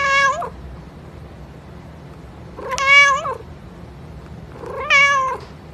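A domestic cat meowing three times, about two seconds apart, each a short call of even pitch.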